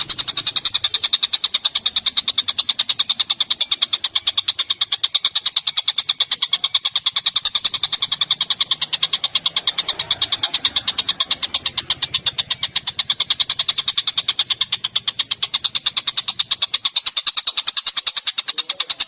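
A small songbird's call in a very fast, even series of short high-pitched chirps, several a second, kept up without a break.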